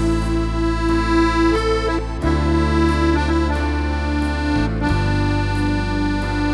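Accordion playing a tune, a repeated pulsing melody note over held bass chords that change about every two seconds.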